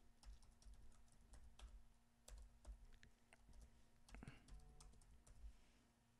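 Faint computer keyboard typing: irregular keystrokes as a password is typed in.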